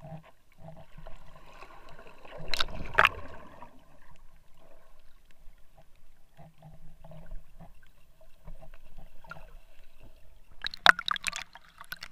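Muffled underwater sound of sea water moving around a waterproof action camera, with a louder rushing burst about two and a half to three seconds in. Near the end come sharp splashes as the camera breaks the surface.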